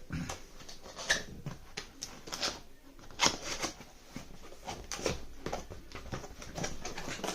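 Cardboard box and plastic packaging being opened and handled: irregular rustling with scattered sharp clicks and taps.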